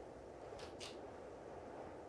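Faint room tone with a low rumble, broken by two brief soft hisses close together about two-thirds of a second in.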